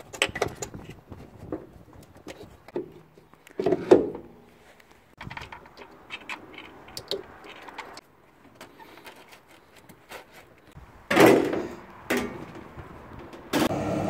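Irregular knocks, clicks and rattles of hands working on the plastic tub and fittings of a Hotpoint washing machine during reassembly, with a louder rustling burst about eleven seconds in and a sharp knock near the end.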